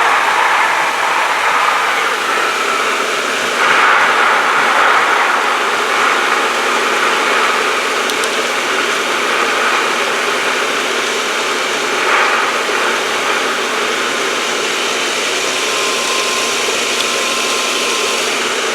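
Pool pump running steadily with water rushing through the plumbing while the filter is backwashed, a loud even rush with brief swells about four and twelve seconds in.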